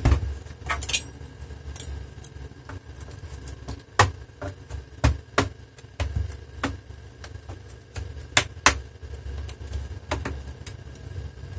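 Plastic snap clips of a Dell Inspiron 17 5767 laptop's bottom case clicking loose as the case is pried off the palm rest by hand. The clicks come at irregular intervals, a few of them much louder, over a low rumble.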